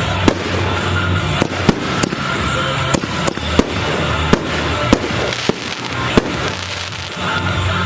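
Fireworks going off: sharp bangs at irregular intervals, roughly one or two a second, over a steady dense noise from the display.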